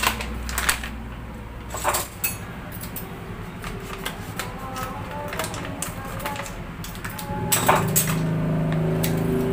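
Plastic wrapper of a bag of wheat flour crinkling and rustling as it is handled and cut open with scissors, with a few sharp crackles. Steady background music comes in near the end.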